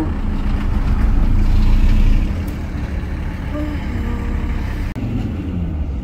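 A car driving on the road: a steady low rumble of engine and tyres, a little louder in the first two seconds.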